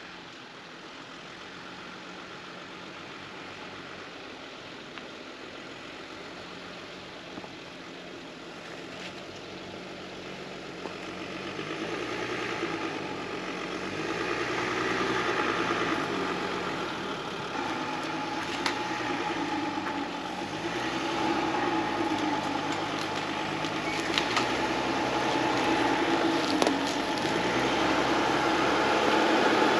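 Mercedes Sprinter 4x4 camper van crawling along a dirt track toward the listener, its engine growing steadily louder as it comes closer, the engine note rising and falling. A few sharp clicks of stones and gravel under the tyres are heard in the second half.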